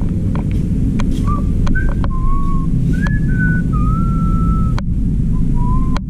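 A person whistling a tune in short held notes that step up and down, over a loud steady low rumble, with a few sharp clicks.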